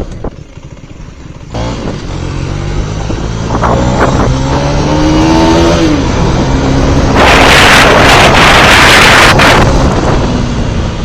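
2017 Mondial HPS 125i's single-cylinder 125 cc engine accelerating, its pitch rising steadily for a few seconds and then dropping at a gear change. Wind buffets the helmet-mounted microphone with a loud rushing noise for a couple of seconds after that.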